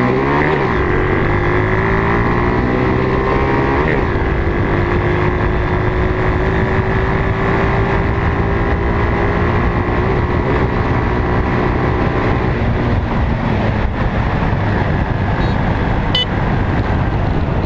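Engine of a small off-road vehicle revving up over the first second or two, then held at a steady high pitch under way, easing off a little near the end.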